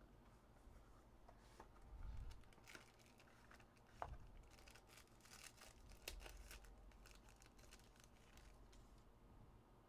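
Faint rustling and tearing as a trading-card hobby box is opened and its foil-wrapped card pack pulled out and torn open, with scattered crinkles and a sharp click about four seconds in.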